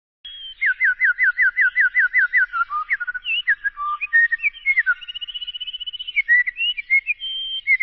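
A person whistling an imitation of birdsong. It opens with a run of about ten quick falling notes, then moves through varied slurred notes and a longer held, wavering high note about two-thirds of the way in.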